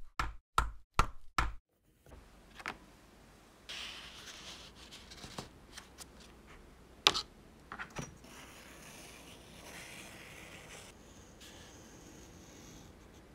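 A quick run of sharp knocks in the first second and a half, then quiet handling of a cardboard template on leather with a sharp tap about seven seconds in, and the scratching of a scratch awl scoring the template's outline into the leather.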